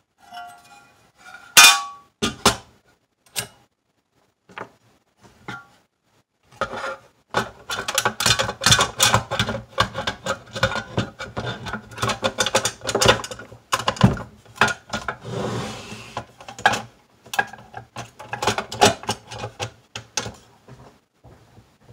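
Sheet-metal housing of a Super Technicolor 580 film projector being fitted back over its chassis: clanks, clicks and rattles of metal parts knocking together. One sharp clank comes about two seconds in, then the clatter grows dense and near-continuous through most of the rest.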